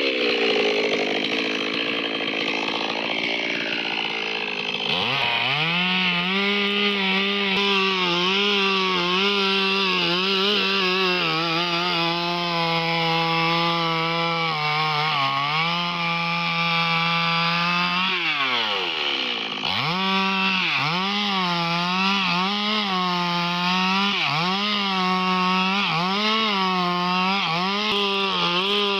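Stihl MS 382 two-stroke chainsaw running at high revs while cutting wood, its engine pitch sagging and recovering again and again as the chain loads up in the cut. About two-thirds of the way through, the revs drop sharply and climb back.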